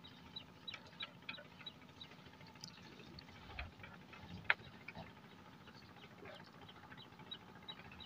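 Light knocks and rustling of a fishing net being hauled hand over hand onto a wooden boat, with one sharp click about halfway through. A faint high chirp repeats a few times a second near the start and again near the end.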